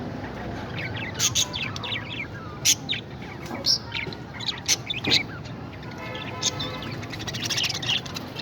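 Pet parrots chirping and calling: many short, sharp chirps in quick runs, with one longer pitched call near the end.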